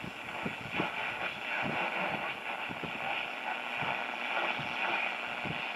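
Static and hiss from a 1941–42 Zenith 6D644 'Boomerang' tube radio's speaker as its tuning dial is swept down the AM band between stations, with scattered short crackles.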